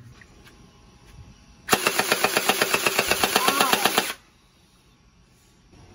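Electric gel blaster firing one full-auto burst of about two and a half seconds, about nine rapid shots a second, then stopping abruptly.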